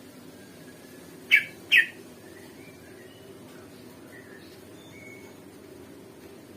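Cucak ijo (green leafbird) calling: two loud, sharp notes about a second in, half a second apart, followed by soft short chirps and whistles.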